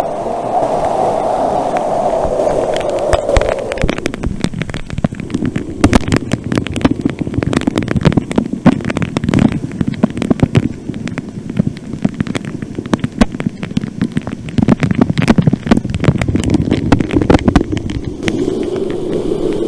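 Waterfall pouring into a pool close by, a steady rush, with water spattering directly on the camera's microphone. From about four seconds in, the spatter comes as dense, irregular crackling pops.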